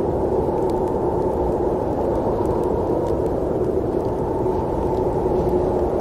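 Steady snowstorm wind, an even rushing noise weighted to the low and middle range, with a few faint ticks above it.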